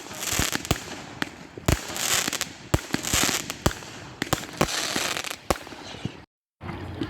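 Fireworks going off: a rapid string of sharp bangs and crackles with several bursts of hiss. The sound cuts out briefly near the end.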